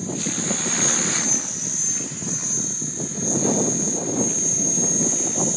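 Align T-Rex 550E electric RC helicopter in flight: a steady high-pitched whine from its motor and gears over the rushing of its rotor blades, which swells twice.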